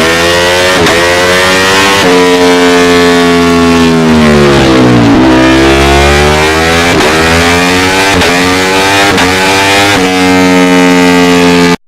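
Ducati Panigale V4 sport bike's V4 engine through an aftermarket exhaust, revved hard. The pitch sinks and climbs again over several seconds, with sharp throttle blips in between, and the sound cuts off abruptly near the end.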